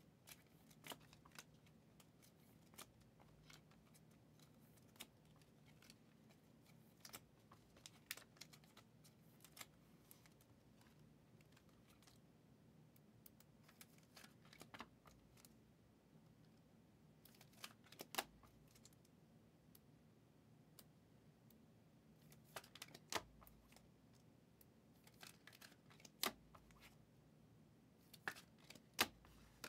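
Near silence with faint, scattered clicks and taps of trading cards being handled and sorted, a few sharper ones in the second half, over a low steady hum.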